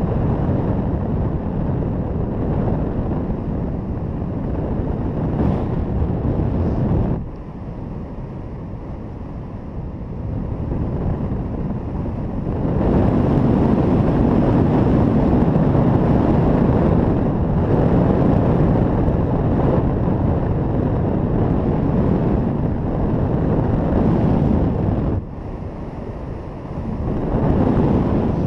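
Wind noise from the airflow of paraglider flight buffeting the camera microphone, a loud low rush. It eases for a few seconds about seven seconds in and again near the end, and is strongest through the middle.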